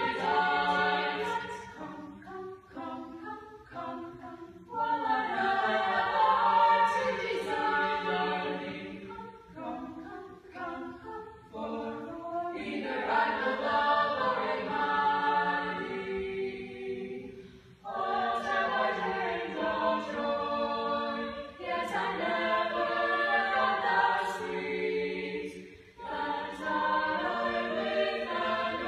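Small mixed choir of women's and men's voices singing a part-song a cappella, in several phrases with short breaks between them.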